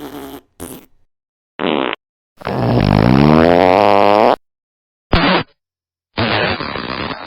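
A string of about six separate fart sounds, edited one after another with silent gaps and abrupt cut-offs. The loudest is a long one of about two seconds whose pitch dips and then climbs; the last runs about a second and a half.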